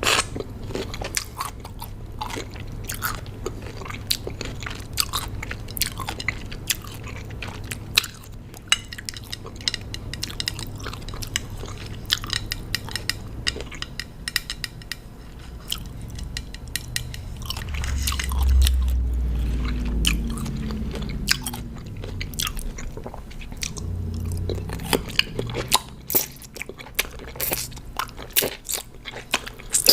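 Close-miked chewing of raw cucumber: loud, wet crunches and bites, many per second. The crunching eases in the middle for a few seconds of low, muffled mouth sound, then picks up again near the end.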